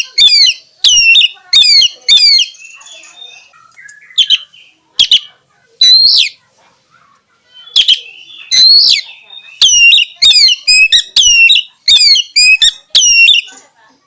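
Oriental magpie-robin (kacer) singing loudly: quick runs of sharp notes sweeping down in pitch, repeated about twice a second, with a looser stretch of scattered notes in the middle.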